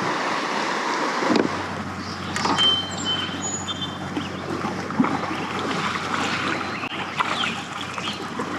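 River water rushing steadily past the kayak, with light splashing.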